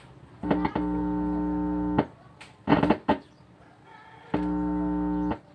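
Test audio played through the repaired Megapro AV 502 amplifier and its speaker: two held musical tones, about a second each, with short noisy bursts before and between them. The amplifier is passing sound again after its no-sound fault was fixed.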